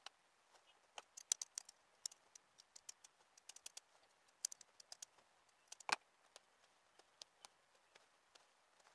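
Stitches of a shirt's sleeve seam being snipped and picked out while the sleeve is unpicked: faint, irregular sharp clicks and snips, a few a second. A louder snip comes about a second in and another at about six seconds.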